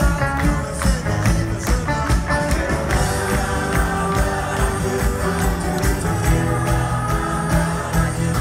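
A large live band playing a song with singing and a steady drum beat, heard over the stage PA.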